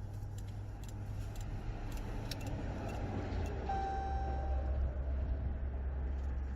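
Clicks and small rattles of someone getting into a car, then one steady electronic beep lasting about a second, a little past halfway through, over a low steady hum.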